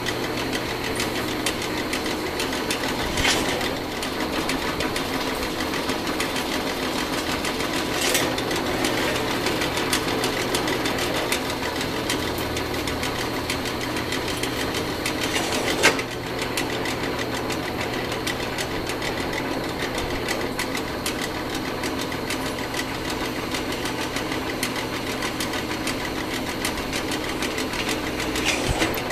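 Drill press running steadily as a number 7 twist bit cuts into steel tubing, drilling tap holes for 1/4-20 bolts. A few short sharp clicks stand out, the loudest about 16 seconds in.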